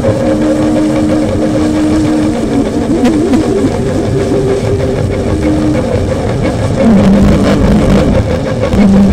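Handmade noise instrument playing loud, dense noise over held drone tones that waver and shift in pitch, with a lower tone coming in about seven seconds in.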